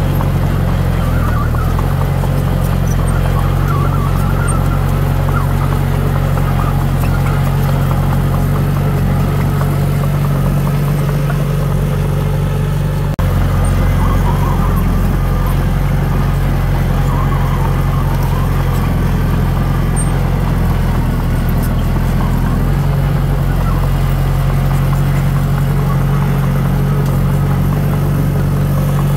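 Heavy diesel engine of earthmoving equipment running at a steady pitch, with a brief dip about halfway through.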